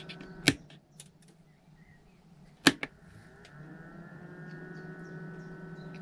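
A camper van's fridge ventilation fan is switched off with a click, leaving near quiet for about two seconds. It is then switched back on with a double click and spins up with a short rising whine into a faint, steady hum.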